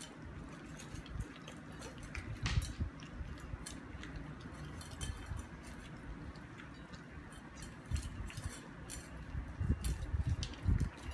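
A dog eating from a bowl: irregular crunching and chewing with scattered small clinks against the bowl.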